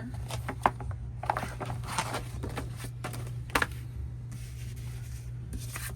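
Paper and plastic rustling as album inclusions, a poster and a CD sleeve, are handled, with scattered light taps and a sharp click about three and a half seconds in, over a steady low hum.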